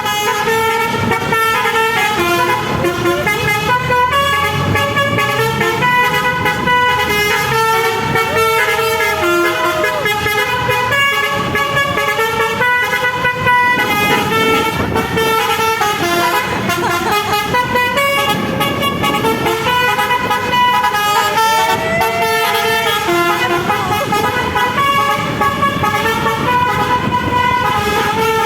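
Indonesian bus 'telolet' horn, a set of multi-tone air horns, playing a continuous tune of short stepped notes.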